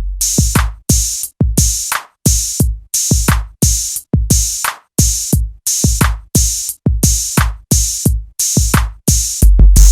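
Electronic music with a drum-machine beat, about two hits a second, with a heavy deep bass at the start and again near the end.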